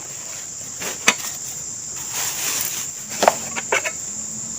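Forest insects droning at one steady high pitch, with a few sharp knocks: one about a second in and two more between three and four seconds in.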